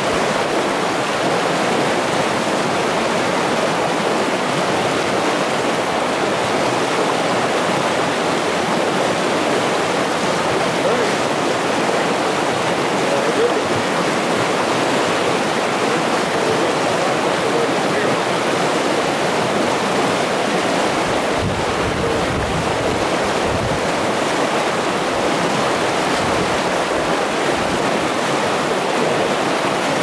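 River rapids: whitewater rushing steadily over rocks.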